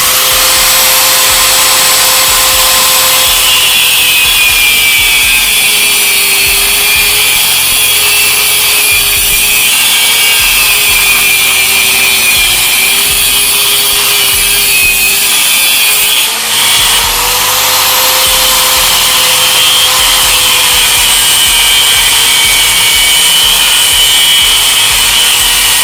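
Angle grinder cutting through the welded seam of a fridge compressor's shell. The motor's pitch sags and recovers as the disc bites into the weld, with a brief drop about sixteen seconds in.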